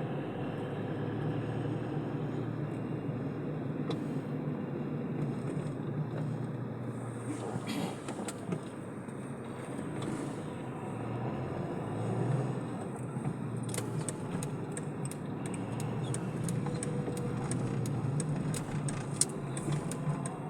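Car engine and road noise heard from inside the moving car's cabin: a steady hum, with a few light clicks in the second half.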